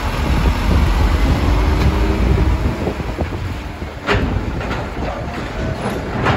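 Light truck's diesel engine running as it drives off at low speed, a steady low rumble, with two sharp clunks, one about four seconds in and one at the end.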